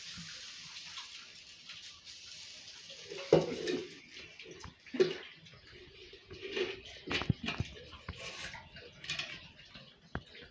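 Idli batter sizzling in the cups of a gunta punugulu (paniyaram) pan, the hiss thinning out over the first couple of seconds. After that come scattered clinks and knocks of a spoon against steel pots.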